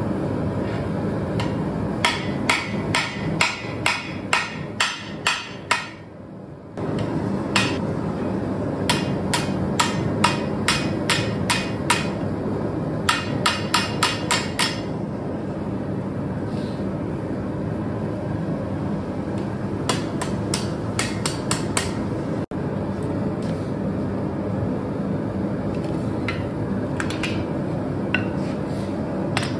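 Hand hammer striking red-hot spring steel on an anvil, in quick runs of blows about three a second with pauses between the runs. The blows are sharp and ringing, over a steady background noise.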